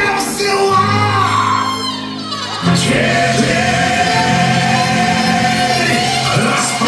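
Music with singing. About two and a half seconds in, a falling sweep leads into a fuller passage with one long held sung note over low sustained tones.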